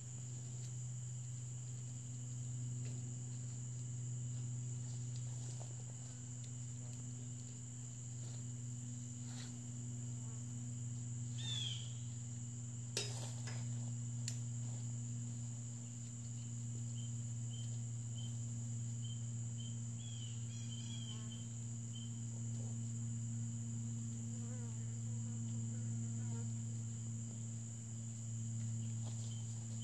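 Steady high-pitched insect chorus over a steady low hum, with a few short bird chirps and one sharp clank about thirteen seconds in as the metal ladder stand is handled.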